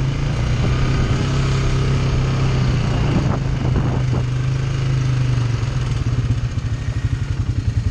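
ATV engine running steadily as the quad rides along a dirt trail. Near the end the engine note turns to a fast, even pulsing as it drops to low revs and the machine slows.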